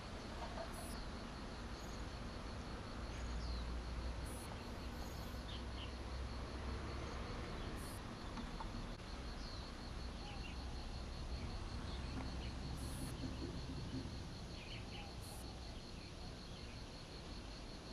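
Outdoor insect chorus: an insect trills steadily in a high, evenly pulsed tone, with a few short bird chirps scattered through and a low rumble underneath.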